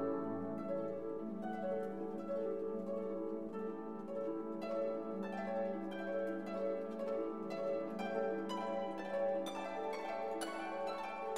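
Background instrumental music: sustained tones under a run of plucked notes that grows busier in the second half.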